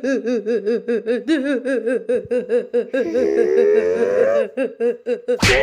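Cartoon character's mocking laughter, a rapid 'ha-ha-ha' of about four laughs a second. About three seconds in it gives way to a rising, wavering whine, and a sudden sharp hit comes just before the end.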